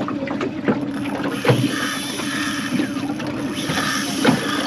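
Outboard motor idling steadily on a small aluminium boat, with water washing and knocking against the hull, during the fight with a big hooked fish. Two short whirring sounds come in the middle and again near the end.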